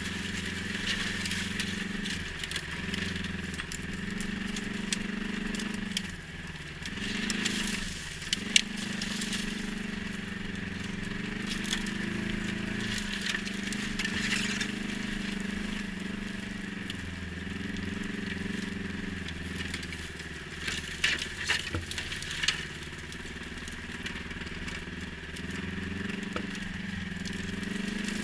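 ATV engine running, its pitch dipping and climbing again several times as the throttle changes, with scattered crackling clicks, clustered about a third of the way in and again about three quarters through.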